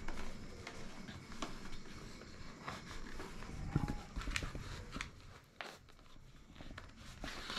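A packaged cloth bandana being unwrapped and handled: scattered crinkles and clicks of plastic and card packaging, with a dull thump about four seconds in.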